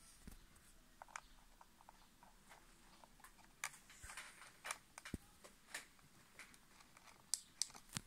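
Faint clicks and taps from handling an Iscancar MM-007 handheld diagnostic tool: an SD card slid into its side card slot, then fingers on its plastic buttons, with a few sharper clicks near the end.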